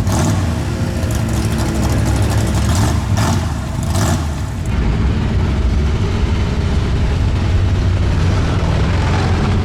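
Off-road vehicle engine running with a steady low rumble, with a few short surges of noise in the first half.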